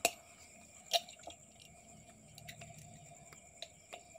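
An egg cracked against a bowl and emptied into it: a sharp tap at the start, another tap about a second in, then a few soft wet sounds and light clicks.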